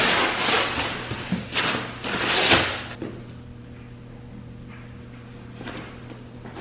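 Wrapping paper tearing and rustling in several loud bursts over the first three seconds as a gift box is unwrapped, then quieter handling of an opened cardboard box and plastic-wrapped parts, over a low steady hum.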